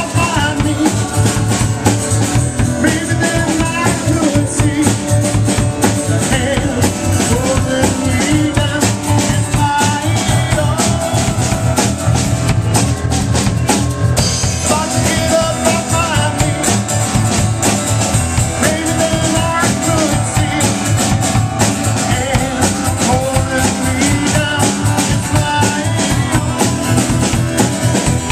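Live band playing a song: drum kit, electronic keyboard and acoustic guitar, loud and steady, with drum hits throughout.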